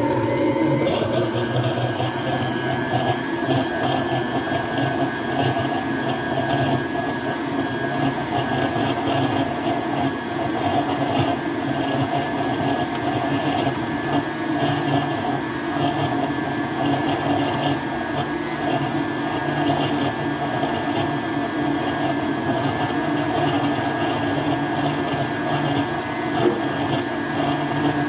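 Countertop blender running steadily at speed, its motor hum and whine constant as it blends fruit into juice.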